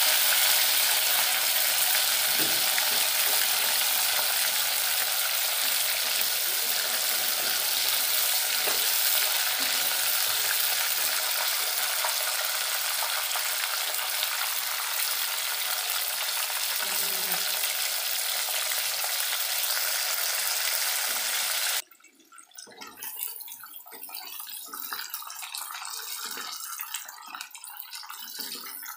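Chicken pieces frying in hot oil in a wok: a steady, loud sizzle. About three-quarters of the way through it cuts off abruptly and gives way to a quieter, crackling fry as a wooden spoon stirs the pieces.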